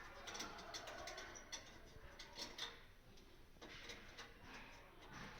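Faint, irregular small clicks and taps from handling the cover and parts of a combined fire-alarm and indoor-hydrant indicator lamp while its bulb is changed.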